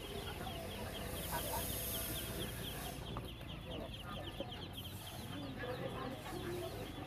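A crowd of caged ducklings peeping constantly, many high, short cheeps overlapping into a steady chorus.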